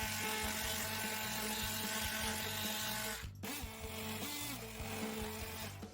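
Oscillating multi-tool with a diamond blade buzzing steadily as it cuts grout, under quiet background music. The sound breaks off sharply about three seconds in, then resumes.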